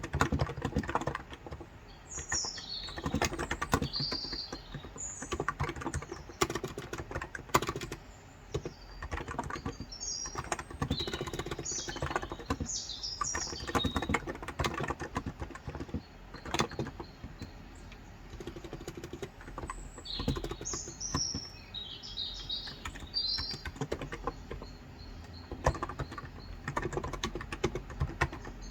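Typing in bursts on a Cox Endeavour tenkeyless keyboard with 35 g electrostatic capacitive (non-contact) switches. Small birds chirp in short high clusters several times in the background.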